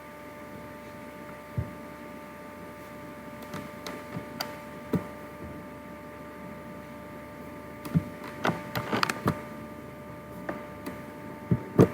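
Scattered clicks of a computer mouse and keyboard, with a quick run of several about two-thirds of the way in and two sharp ones near the end, over a steady electrical hum from the recording setup.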